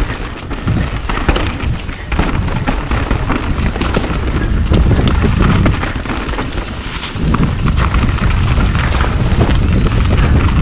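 Mountain bike riding fast down a rocky dirt trail covered in dry leaves: tyres crunching and the bike clattering over bumps, with a heavy wind rumble on the microphone.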